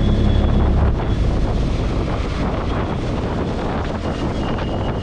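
KTM Duke 200's single-cylinder engine running at a steady note that drops away about a second in, leaving wind rushing over the microphone and the noise of the bike moving along.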